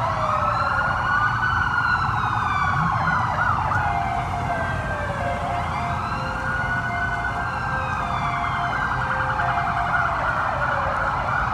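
Several police sirens wailing at once from Fox-body Mustang SSP police cars driving past, the wails overlapping as they rise and fall, with a fast warble coming in at times. The cars' engines run low underneath.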